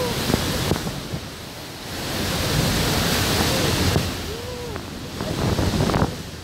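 Waterfall spray and rushing water pounding over a speed boat close under the Iguazu falls, with wind buffeting the microphone; the rush swells loudest in the middle. A few short rising-and-falling cries from people aboard break through.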